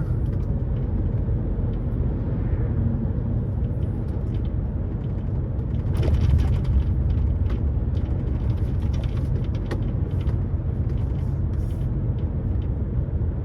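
Steady low rumble of a lorry's diesel engine and road noise heard from inside the cab, swelling a little about six seconds in.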